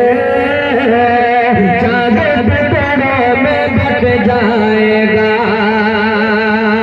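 A man singing a naat, an Urdu devotional poem, into a microphone in a melodic, ornamented style, with long held notes that waver near the end.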